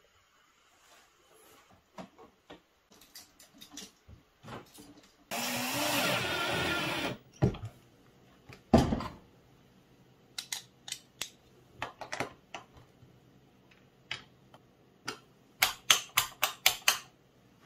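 A cordless drill-driver runs for about two seconds, its motor pitch rising, driving a screw while the wall-switch plate is being mounted. A sharp knock follows, then scattered clicks, and near the end a rapid run of clicks as the wall switch is pressed several times.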